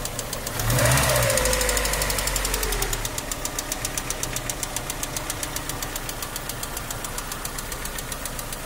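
Ford Escort 1.8 Zetec DOHC 16-valve four-cylinder engine running, with a rapid, even, high-pitched metallic ticking from its hydraulic lifters (tappets). The lifters are not filling with oil, so the cams strike them through the clearance on every turn. The engine is revved briefly about a second in and falls back to idle over the next two seconds, the ticking continuing throughout.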